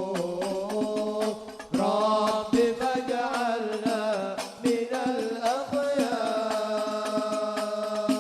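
Sholawat devotional singing with hadrah frame drums (rebana) beating a busy rhythm under the voices. The sound dips briefly near the two-second mark, then comes back loud, and the voices end on a long held note.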